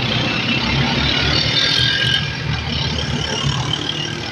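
Motorcycle tricycle's small engine running steadily while riding along a road, under a steady rush of wind and road noise.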